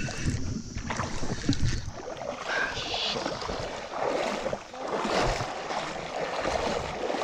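Creek water splashing and sloshing, with a low rumble on the microphone in the first couple of seconds.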